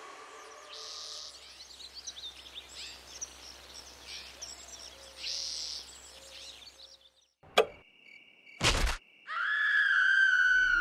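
Forest ambience with birds chirping. Late on, a sharp click, then about a second later a short burst of noise, then a loud, high, sustained eerie tone sets in: a horror-film sound-design sting.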